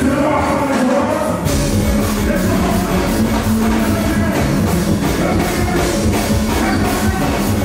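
Live Caribbean carnival band music played loud through the stage sound system, with a driving beat. About a second and a half in, the deep bass comes in under the music.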